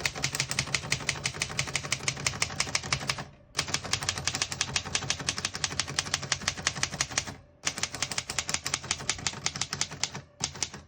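Typing on a 1941 Remington Remette portable typewriter: rapid, even keystrokes in three long runs, with short pauses about three and a half and seven and a half seconds in.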